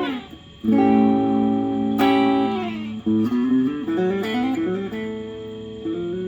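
Fender Mexico Telecaster electric guitar being played: a quick slide down in pitch, then two strummed chords left to ring, then a run of single notes and short melodic phrases.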